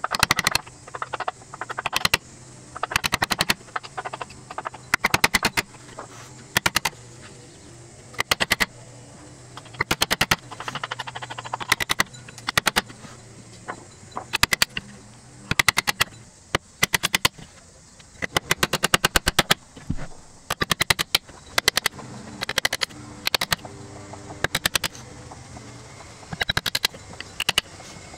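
Japanese chisel being struck with a hammer to chop a mortise in wood: quick flurries of sharp taps, in short bursts every second or two.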